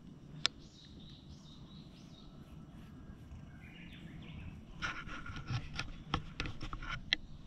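A cat's fur being brushed with a hand-held grooming brush: a quick run of short scratchy strokes in the second half, after a single sharp click about half a second in. Faint birds chirp over a steady low outdoor rumble.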